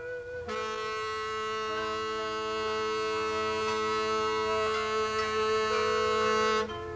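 Background music: a melodic line gives way about half a second in to a long held, reedy chord over a steady low drone, which swells slightly and cuts off shortly before the end.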